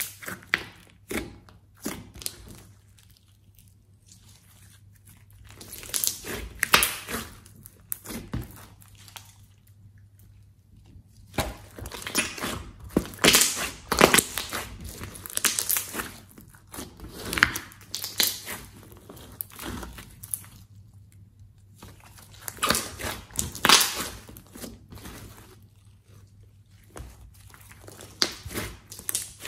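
Hands squeezing and pressing a large mound of glossy slime, giving sticky squelches and clusters of crackling pops. The crackling comes in several spells with quieter pauses between.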